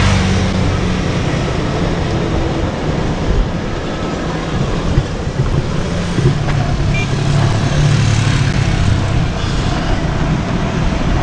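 Steady loud rolling noise of skate wheels on a road, with the hum of motor vehicles passing, one most clearly from about six to nine seconds in.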